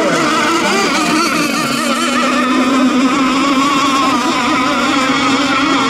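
Engines of several radio-controlled racing boats running together, their overlapping pitches wavering up and down as the boats race.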